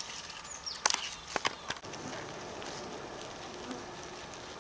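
A few sharp clicks and rustles of hands handling puffball mushrooms in grass and moss about a second in, then a steady faint hiss of outdoor background.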